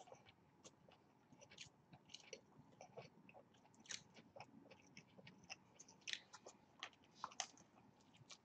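Faint chewing of a burger and french fries close to the microphone, heard as many short, irregular soft clicks.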